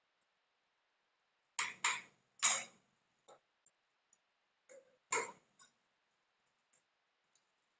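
Kitchen things being handled at a counter: short sharp knocks and clatters, three close together about a second and a half in and another loud one around five seconds.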